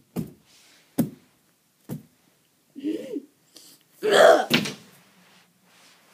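A few soft thumps as stuffed toys are handled and set down on carpet. A brief hummed voice sound comes about three seconds in, and a louder voice-like sound follows about a second later.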